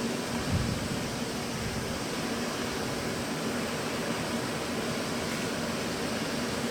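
Steady machinery hum of a ship, a constant low tone over an even hiss.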